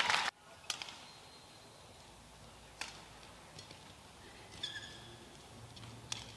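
Badminton rally: four sharp racket hits on the shuttlecock about two seconds apart, with short high-pitched shoe squeaks on the court surface.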